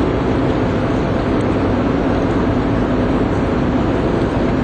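Steady, loud engine drone with a constant low hum, unchanging throughout.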